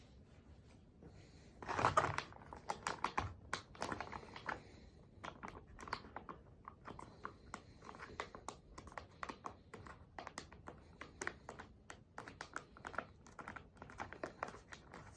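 Irregular light clicks and taps with crinkling, like gear being handled, loudest in a rustling burst about two seconds in.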